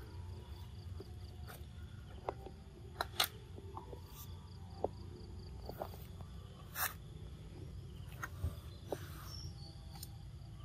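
Outdoor ambience over a steady low rumble: scattered light clicks, crackles and brief rustles of dry leaf litter. A faint, rapid high chirping comes and goes.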